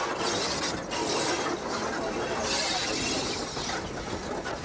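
Steam locomotive running: a dense mechanical clatter and rattling, with bursts of steam hiss that come and go, one about two and a half seconds in.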